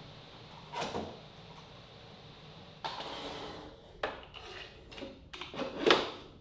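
Workpiece and clamps being handled on aluminium workbench support rails: a few separate knocks and clicks and a short scraping slide, with the loudest knock near the end.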